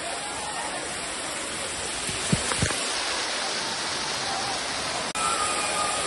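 Steady rushing of a waterfall, with two brief low thumps about two and a half seconds in and a momentary break in the sound just after five seconds.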